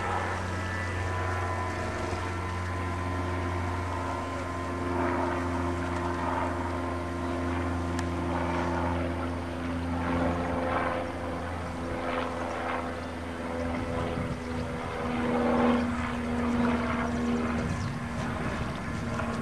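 Radio-controlled model boat's motor running steadily at speed, a buzzing drone whose pitch shifts about two-thirds of the way through, with the hull splashing through ripples.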